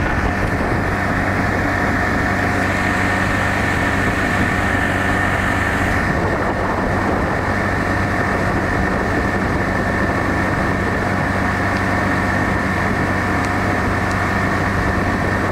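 Motorboat engine running steadily at towing speed, pulling a kneeboarder, over the rush of the boat's churning wake.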